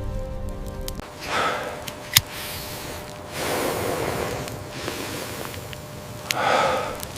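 A person breathing heavily, with three loud breaths, the middle one the longest, and a single sharp click between the first two. A low steady hum stops about a second in.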